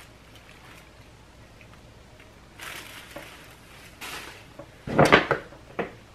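Paper wrapping rustling in several short bursts as a gift is pulled from its bag, starting about two and a half seconds in and loudest about five seconds in.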